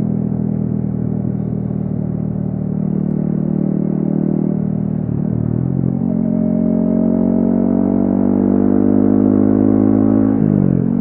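Yamaha XSR155's single-cylinder engine through a DIY exhaust, heard from the rider's seat while riding under way. The engine note drops and climbs back about five seconds in, rises slowly as the bike gathers speed, and drops sharply again near the end, like upshifts.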